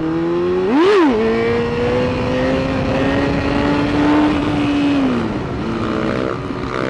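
Motorcycle engine under way: a quick rev blip about a second in, then a steady, slowly rising pull that eases off just after the five-second mark.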